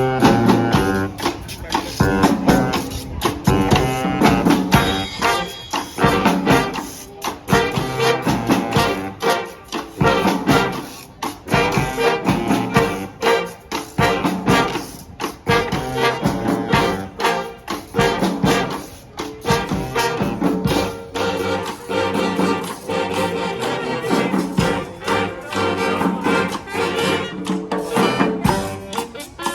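Street brass band playing a Latin cha-cha groove: trumpets and trombones carry the melody over drums that keep a steady beat.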